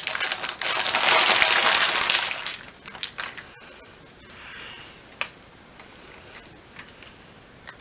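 A clear plastic bag crinkling loudly for about two seconds as empty plastic lip balm tubes are tipped out of it, followed by scattered light clicks of the tubes knocking together and being pushed into a filling tray.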